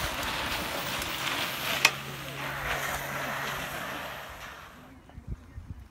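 Bicycle tyres hissing over a loose shale cycle speedway track as a rider passes close by and moves away, the hiss fading after about four seconds. One sharp click about two seconds in.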